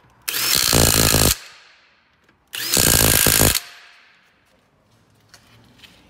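Impact wrench driving wheel lug nuts tight, in two bursts of about a second each: one just after the start and one about two and a half seconds in.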